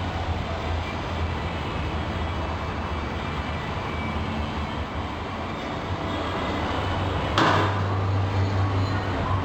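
Steady mechanical rumble and hiss, with one sharp, loud bang about seven seconds in.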